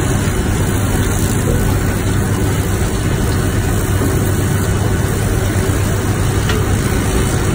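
High-pressure washer jet spraying steadily onto steel and packed dust, with a steady low machine drone underneath.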